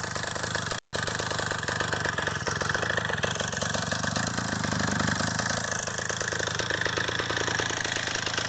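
Two-stroke engine from a Ural chainsaw, mounted on a wheelchair, idling steadily.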